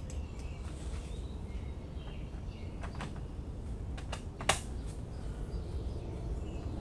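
Light clicks and taps of small metal and plastic parts being handled and fitted while a string trimmer is put back together, with one sharper click about four and a half seconds in, over a steady low hum.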